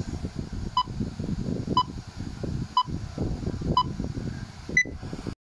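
Film-leader countdown sound effect: a short beep once a second, four times, then a fifth beep higher in pitch near the end, over a steady crackling old-film noise.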